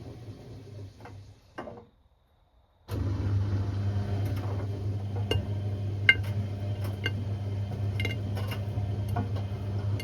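Hotpoint Aquarius WMA50 washing machine: a low rumble fades out with two clicks and breaks off into a second of silence. It then gives way to a steady low hum broken by irregular sharp metallic ticks, about one a second.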